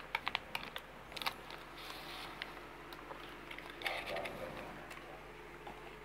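Handling noise from a new network patch cable being taken out of its plastic packaging: scattered light clicks in the first second or so and a brief plastic rustle about four seconds in, over a faint steady hum.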